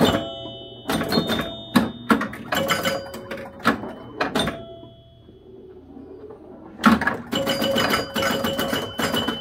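1973 Gottlieb Big Indian electromechanical pinball machine in play: sharp mechanical clacks from its flippers, bumpers, relays and score reels, with chime bells ringing briefly after some of them. The clacking dies down for about two seconds after the middle, then comes back as a fast run of clacks and chimes near the end.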